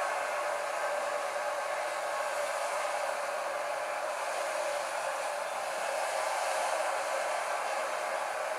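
Steady, even hiss like rushing air, with no low end and no change throughout.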